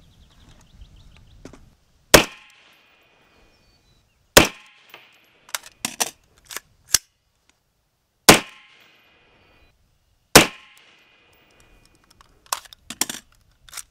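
Four AR-15 rifle shots in two pairs, about two seconds apart within each pair and about four seconds between the pairs, each with a short ringing echo. Quieter clicks come between the pairs and near the end.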